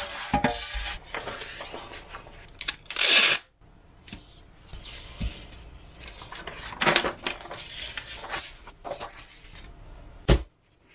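Paper templates and a Depron foam sheet being handled and slid across a wooden table: irregular rustling and scraping of paper on foam, with one sharp tap near the end.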